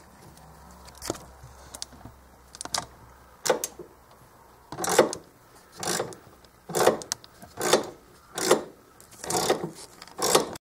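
A few light clicks, then rhythmic scraping strokes, about one a second, that go on until the sound cuts off near the end.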